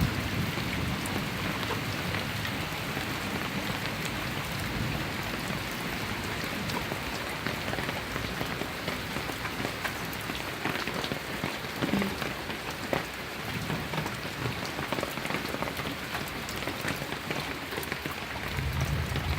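Steady rain falling, with many scattered individual drops hitting close by.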